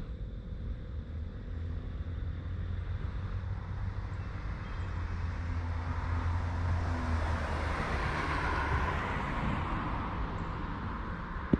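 A road vehicle passing: a low rumble with tyre and road noise that swells about six seconds in and fades by about ten seconds.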